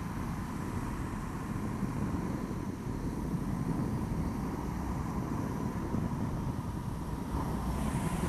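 Wind buffeting the microphone of a bike-mounted camera, with tyre and road noise on a wet road while cycling. Near the end a louder rush builds as a large vehicle draws up close alongside.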